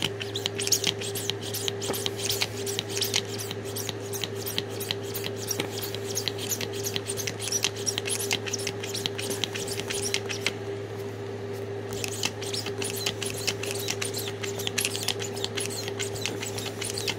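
Small hand ball pump worked rapidly through an inflation needle into a ball, making quick puffs of air and plastic clicks at about four strokes a second. The pumping pauses briefly about ten seconds in, then carries on.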